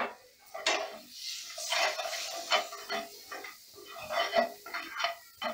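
Steel spoon stirring and scraping a spiced onion-and-tomato masala around a non-stick frying pan in quick, irregular strokes, with a sharp clink of spoon on pan at the start.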